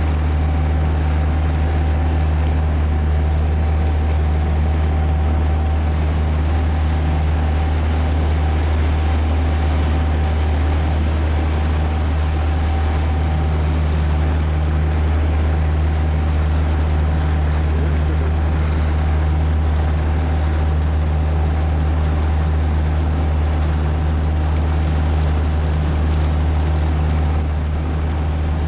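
Amphicar's 1147 cc Triumph four-cylinder engine running at a steady speed while the car cruises afloat, a constant low drone with a faint steady higher whine over it.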